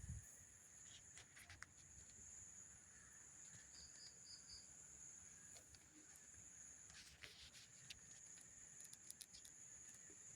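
Faint night ambience: a steady high insect drone, scattered faint crackles and clicks from the campfire, and a quick run of four high chirps about four seconds in.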